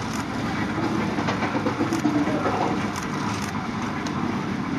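Railway turntable turning with the C61 20 steam locomotive on it: a steady mechanical rumble and grinding, with scattered clicks and knocks.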